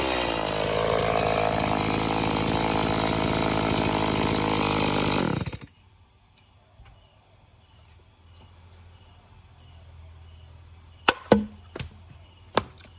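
Stihl MS180 two-stroke chainsaw engine dropping back from a rev, running steadily, then shutting off about five and a half seconds in. Afterwards there is a faint background with insect chirps and a few sharp clicks near the end.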